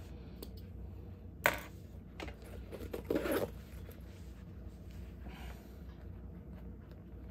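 A canvas purse being handled and turned over by hand: a sharp click about one and a half seconds in, then the fabric rustling for about a second, and a fainter rustle later, over a steady low hum.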